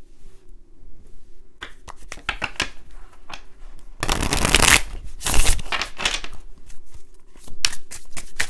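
A deck of oracle cards being shuffled by hand. Scattered card taps and slides start about a second and a half in, with a dense flurry of shuffling about four seconds in and a shorter one just after.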